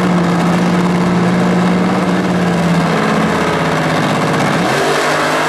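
Supercharged 392 Chrysler Hemi in a front-engine A/Fuel dragster, burning nitromethane, idling at the starting line before the launch. Its pitch sags about three seconds in and steps back up near the end.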